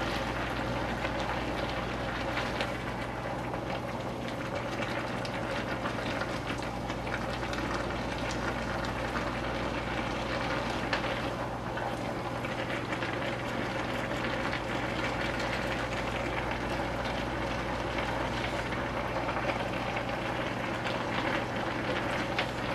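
Noodles, green beans and sausage sizzling in a wok as they are turned with tongs and a spatula, with faint scrapes and clicks of the utensils over a steady low hum.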